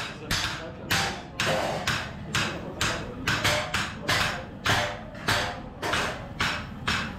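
Hand hammers striking bronze cymbals during hand-hammering: a steady run of sharp metallic strikes, about two to three a second, each with a brief ring.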